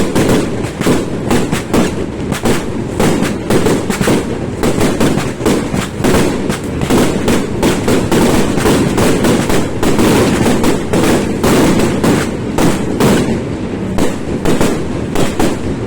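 A Yanshui beehive-fireworks barrage: masses of bottle rockets and firecrackers going off at once, a loud unbroken crackle of many sharp bangs a second over a steady rushing roar.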